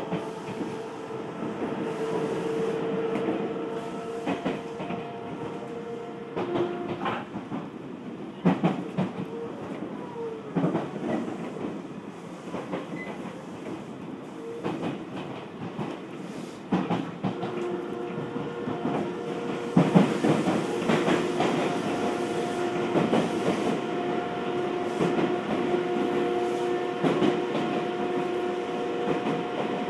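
Odakyu 1000-series electric train running, heard from inside the passenger car: a steady electric motor whine over running noise. The whine drops away about six seconds in and returns about seventeen seconds in. Wheels clack over rail joints in between and again as the whine comes back.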